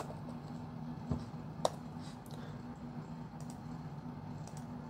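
Scattered keystrokes on a computer keyboard, a few faint taps with two clearer clicks about a second and a second and a half in, over a steady low hum.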